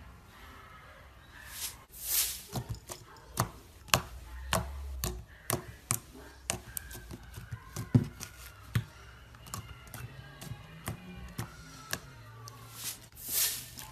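Slime being pressed and worked by hand, with irregular sharp clicking pops from air bubbles and two longer squelching sounds, about two seconds in and near the end.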